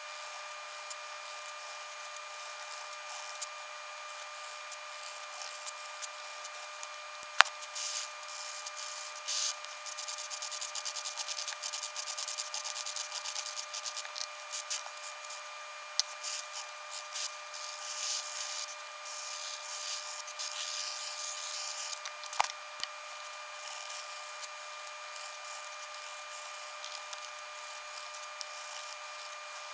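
Rapid scratching and rubbing of pencil and chisel-tip marker on paper, heaviest through the middle of the stretch, with a sharp click about seven seconds in and another about twenty-two seconds in. A faint steady high whine runs underneath.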